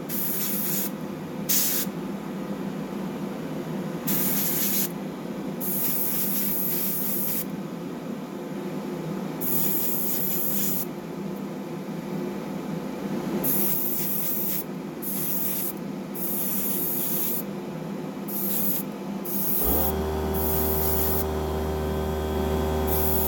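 Airbrush spraying paint in short on-and-off bursts of hissing air. About twenty seconds in, a small electric motor, the air compressor feeding the airbrush, starts suddenly and runs with a steady hum.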